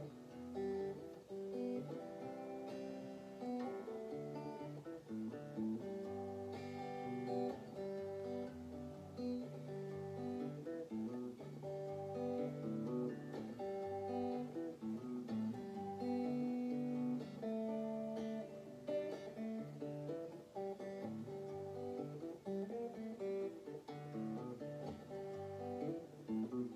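Electric guitar played with a pick, a continuous run of changing notes and chords.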